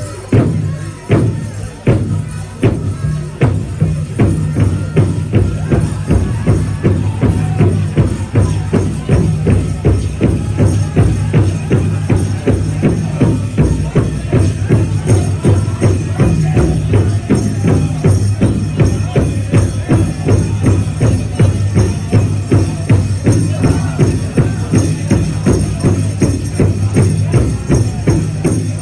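Powwow drum group beating a large shared drum in a steady, quick beat while the singers sing a powwow song over it.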